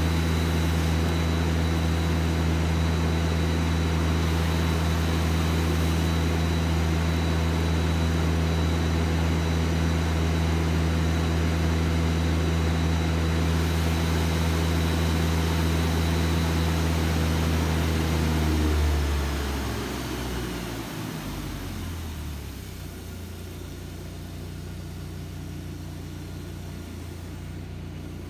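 Engine-driven pump running steadily at full speed, forcing water up a drainpipe in a tall jet. About two-thirds of the way through, the engine slows and stops, leaving a fainter steady hiss of falling spray.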